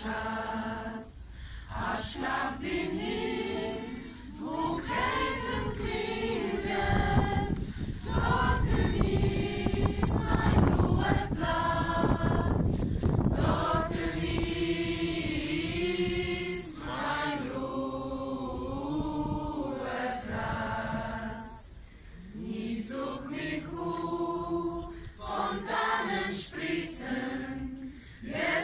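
A group of voices singing a song together, several sustained sung lines with short breaks between phrases. A low rumble on the microphone rises under the singing for a few seconds around the middle.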